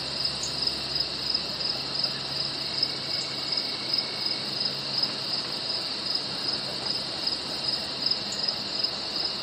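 Crickets chirping in a steady, high, evenly pulsing chorus, about two pulses a second, with a faint low hum through the first half.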